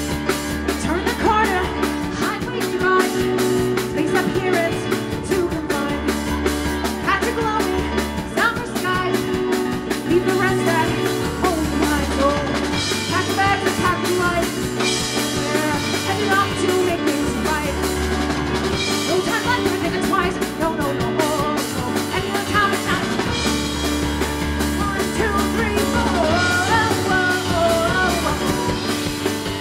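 Live rock music from a keyboard-and-drums duo: a Roland RD-64 digital piano played over a drum kit keeping a steady beat, with a woman singing.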